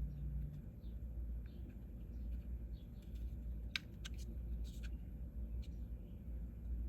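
Faint clicks and taps of a small resin-printed part being handled and pressed into a figure, with a few sharper clicks a little before the middle, over a low steady hum.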